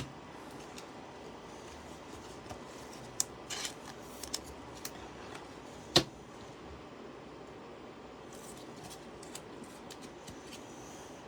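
A few light clicks and handling noises from trading cards and card packs being sorted and opened, with one sharp click about six seconds in.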